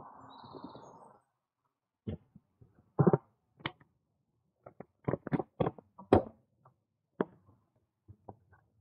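A second of wind noise, then irregular sharp knocks and clicks, a dozen or so, the sound of a bicycle jolting and rattling as it rides over the bumps of a tarmac path.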